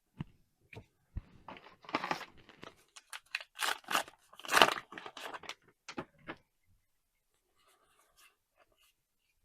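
Foil trading-card booster pack being torn open and its wrapper crinkled, starting with a few sharp clicks and ending with a burst of tearing and crinkling, loudest about four and a half seconds in, before falling quiet.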